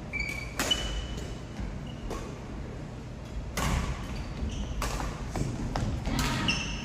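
Badminton rackets striking shuttlecocks in rallies: a string of sharp, echoing hits about once a second. Short high squeaks of sneakers on the hardwood gym floor come between the hits.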